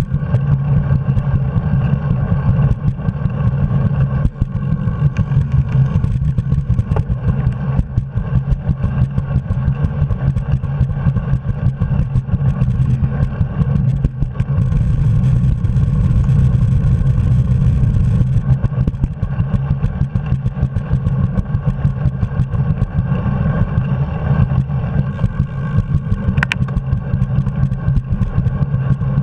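Steady low rumble of wind buffeting a handlebar-mounted camera's microphone while cycling, with rattle and clicks from road vibration through the bicycle and mount. A short high squeak near the end.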